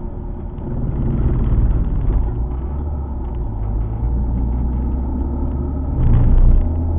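Alfa Romeo 147 GTA's 3.2-litre V6 engine running on the move, a steady low drone over road rumble. The engine note shifts in pitch a few times and gets louder briefly about six seconds in.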